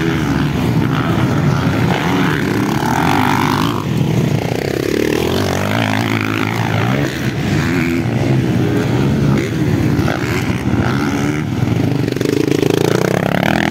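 Motocross dirt bikes racing past, their engines revving, rising and falling in pitch several times as they accelerate and pass, over a steady engine drone from the bikes further off.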